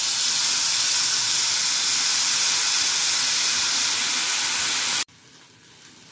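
Dried baby prawns dropped into hot soybean oil in a frying pan, the oil sizzling loudly with a dense, steady hiss. It cuts off suddenly about five seconds in, leaving only faint sound.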